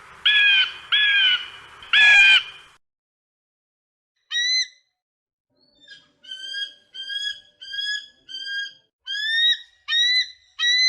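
Eagle calls: three loud pitched calls in quick succession in the first two and a half seconds. After a pause, a run of about ten short whistled notes follows, each rising in pitch, roughly one and a half a second.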